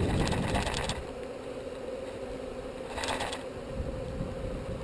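Beehive equipment being handled: two short runs of clicking and scraping, one near the start and one about three seconds in, over a faint steady hum.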